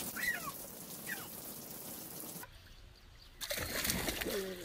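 Steady rain dripping and trickling onto a wet deck, with a few short high chirps. After a break of about a second, water splashes in a plastic kiddie pool.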